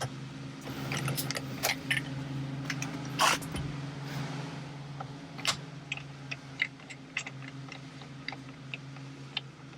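Irregular metallic clicks of a ratcheting torque wrench working the 16 mm steering-wheel centre bolt loose, over a steady low hum.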